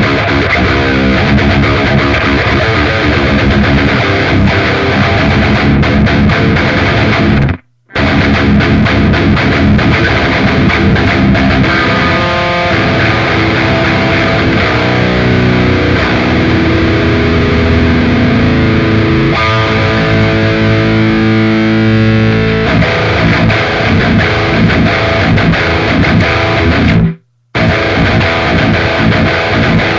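Distorted electric guitar played through a Fractal Audio Axe-Fx amp modeler, with heavy riffing and held lead notes. The sound cuts out abruptly for a moment twice.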